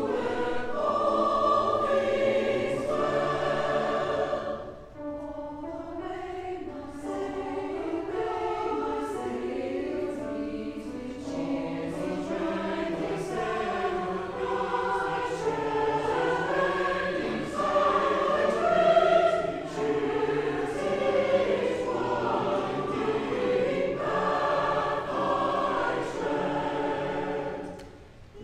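Mixed choir of men's and women's voices singing, with brief breaks between phrases about five seconds in and near the end.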